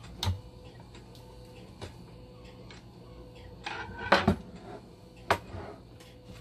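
Knocks and clatter from handling a dialysis machine's blood pump module and a screwdriver on a desk. There is one knock just after the start, a cluster of loud knocks about four seconds in as the unit is turned upright and the screwdriver is put down, and one more knock about a second later.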